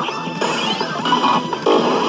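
Electronic music and sound effects from a Hanabi Zekkei pachislot machine: a dense mix of many short chirps and quick pitch glides over one another.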